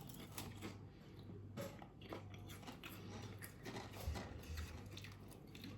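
Thin potato crisps being chewed, faint irregular crunching in the mouth over a low steady hum.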